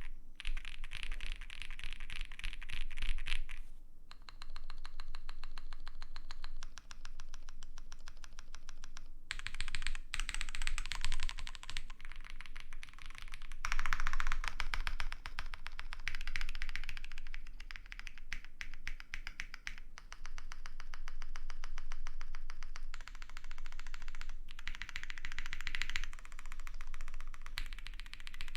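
Fast, continuous typing on a custom mechanical keyboard: an Owlab Spring with FR4 plates, lubed and filmed Kailh Polia switches and GMK keycaps, with short pauses about 4 and 9 seconds in.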